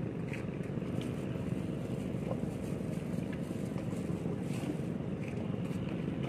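Steady wind noise on the microphone over small lake waves lapping among shore rocks, with faint scattered splashes or ticks.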